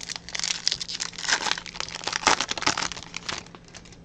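Crinkly wrapper of a Topps 2021 Update trading-card pack being torn open and crumpled, a dense crackling that lasts about three seconds.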